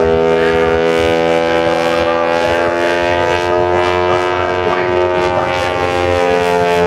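Wing-walking airshow plane's piston engine and propeller droning steadily as it flies past, its pitch bending slowly.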